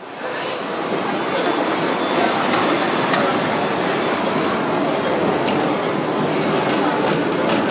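Hong Kong double-decker electric tram running along street rails, heard from inside the upper deck: a steady rumble and rattle of the car on the track, with scattered sharp clicks. The sound fades in from silence at the start.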